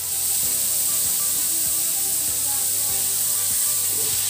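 Diced carrots, onion and garlic sizzling steadily in oil in a wok, with soft background music of held notes.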